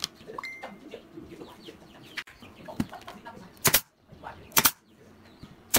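Nail gun firing brads through a thin wooden strip into a pine frame: three short, sharp shots about a second apart in the second half.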